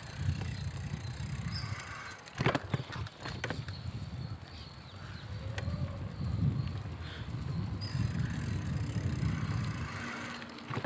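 A bicycle being ridden along a road, heard as rolling noise under wind buffeting the microphone as a low, gusting rumble, with a few sharp clicks or rattles about two and a half seconds in.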